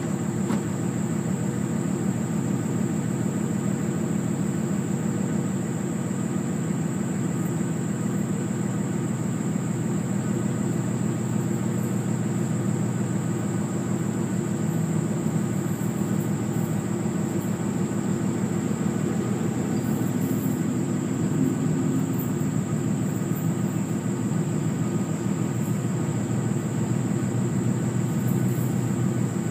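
Steady low drone of a running vehicle, unchanging for the whole stretch, with a constant faint high-pitched whine above it.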